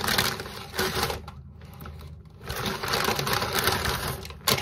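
Paper takeout bag rustling and crinkling as a hand rummages inside it, in two bursts with a quieter pause between, then a sharp knock near the end.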